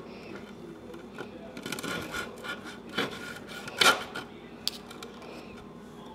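Steak knife sawing through the breaded crust of a country fried steak, a run of rasping scrapes with knife and fork clicking on the dish; the loudest scrape comes about four seconds in, followed by one sharp click.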